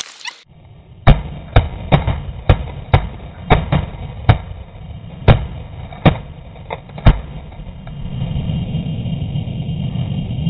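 A volley of shotgun shots from several hunters firing together: about a dozen sharp shots, uneven and overlapping, starting about a second in and ending around seven seconds. Under them runs a low rumble that grows louder near the end.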